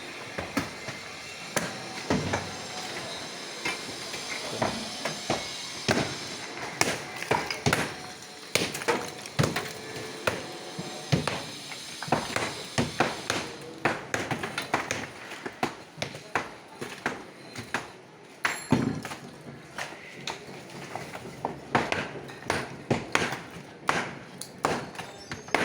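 Irregular sharp knocks of tools striking at construction work, sometimes several a second. Under them is a steady background noise that fades about halfway through.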